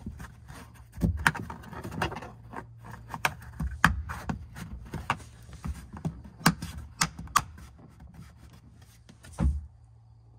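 Irregular plastic clicks and knocks from snapping a trim cover into the cargo-area panel and handling the plastic parts, with a louder knock near the end, over a low steady hum.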